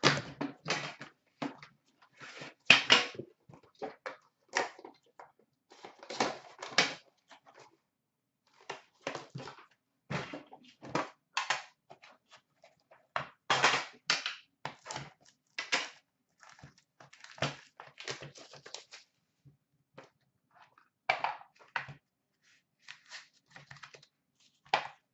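A hockey card box being opened by hand: the cardboard and plastic-coated boxes are slid apart, their lids lifted off, and the trays set down on a glass counter. It comes as irregular rustles, scrapes and taps.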